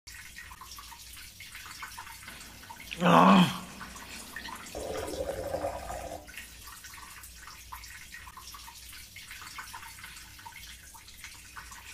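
Trickling and dripping of a stream of urine splashing, with a brief loud sound about three seconds in.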